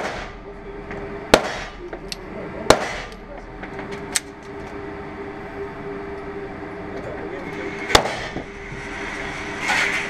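SIG P210 9 mm pistol fired in an indoor range: a shot right at the start, two more about a second and a half apart, then a pause and a last shot about eight seconds in, each with a short echo off the range walls. A thinner, lighter crack comes about four seconds in, and a low steady hum runs underneath.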